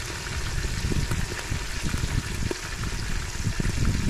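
Danggit (rabbitfish) sizzling steadily as they fry in shallow hot oil in an aluminium pot, with a low uneven rumble underneath.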